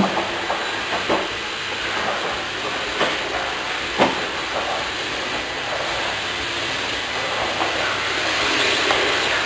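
Stick vacuum cleaner running steadily on a tiled floor, with a few knocks about a second apart early on and another near the middle.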